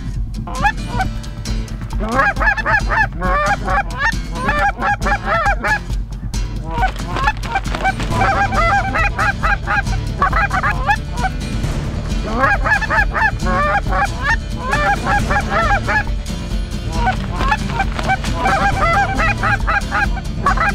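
Canada goose honking and clucking, short calls repeated quickly in runs of a few seconds each, four runs with brief gaps between them.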